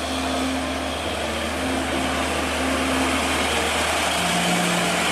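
Hino 500 tanker truck with a tank trailer driving by, its diesel engine running under a steady rush of road noise; the engine note sits lower from about four seconds in.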